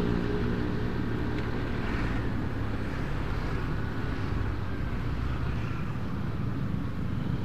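Motorbike riding along at a steady pace: its engine running with wind and road noise, even throughout.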